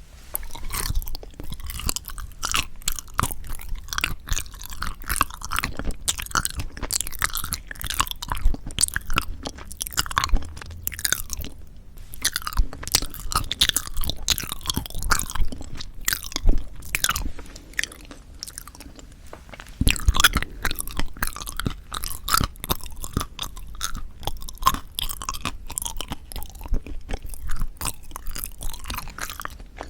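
Close-miked chewing of soft sweet red bean jelly (yanggaeng): dense, sticky, wet mouth clicks and smacks, with a couple of short pauses and a fresh bite about two-thirds of the way through.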